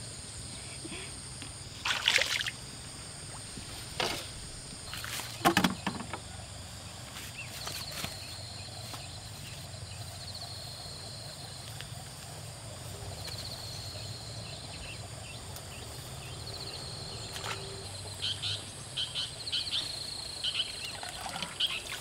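Water splashing and sloshing in a few short bursts, with more small splashes near the end, over the steady high trilling of insects.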